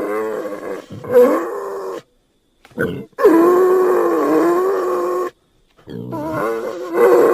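An animal's drawn-out calls with wavering pitch, one after another with short silent gaps between them, each cut off abruptly, with one brief call in the middle.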